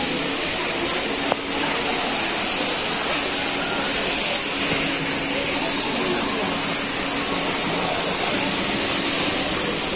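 Supermarket ambience: a steady hiss of background noise with faint indistinct voices and a low hum, and a single click about a second and a half in.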